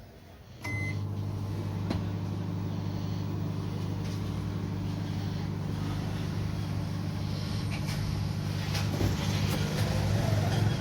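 Dawlance microwave oven's keypad beeps once, then the oven starts running with a steady mains hum and fan noise. The oven runs but does not heat the water, the fault the technician is tracing to its high-voltage section.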